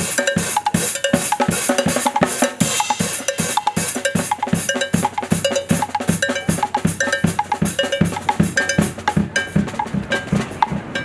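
Drum kit played in a fast, steady rhythm, about four strikes a second, with bright clanking cowbell-like hits on top.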